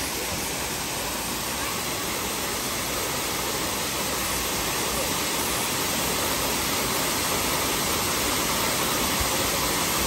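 Waterfall pouring into a rock pool: a steady rush of falling water that grows slightly louder as it goes on.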